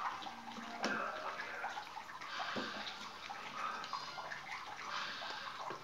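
Black plastic bag wrapping on a parcel crinkling and rustling as it is cut and pulled open by hand, with a few sharp clicks.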